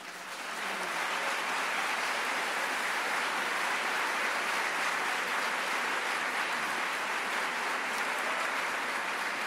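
Audience applauding steadily, swelling up within the first second and holding an even level.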